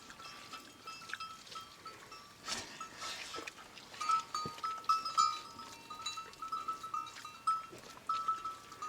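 A flock of sheep, with small bells clinking in short repeated rings and occasional bleating.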